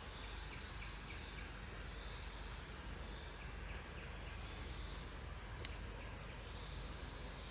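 Insects in the surrounding forest making a steady, high-pitched drone, with a fainter, higher tone above it.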